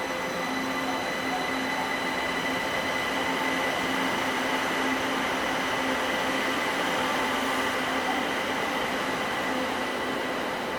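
Kaohsiung Metro Orange Line Siemens train, its electrical equipment giving a steady hum and whine at several fixed pitches over an even rushing noise. The pitch does not change.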